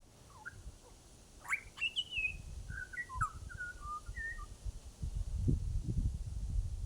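Butcherbird singing a string of short, clear whistled notes, some rising and some falling, through the first four seconds. A low rumble, like wind on the microphone, comes up in the second half.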